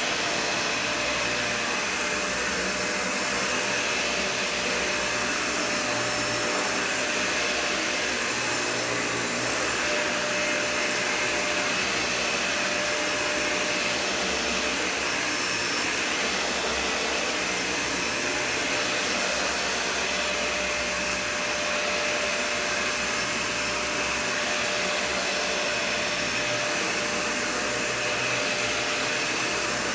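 Dyson Ball Total Clean (UP13) upright vacuum running continuously, a dense motor-and-airflow rush with a steady high whine. It swells and eases slightly about every two seconds.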